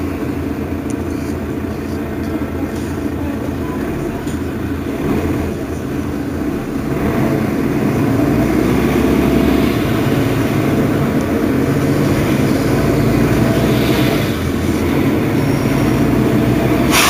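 Mercedes-Benz Citaro facelift city bus's diesel engine idling while the bus stands at a stop, a steady drone that grows louder about seven seconds in and stays up.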